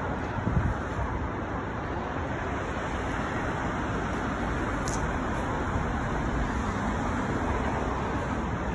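Steady city street traffic noise: cars driving past on a downtown street, a continuous rush of tyres and engines, with a short thump about half a second in.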